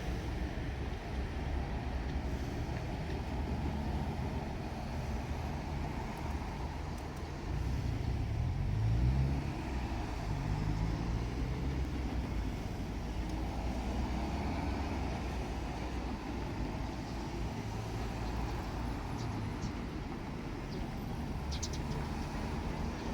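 Low, steady rumble of vehicle engines, growing louder about eight seconds in, where an engine note rises in pitch, then settling back to a steady rumble.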